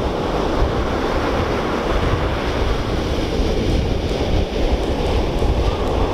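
Ocean surf and wind: a steady rushing noise with a deep rumble underneath.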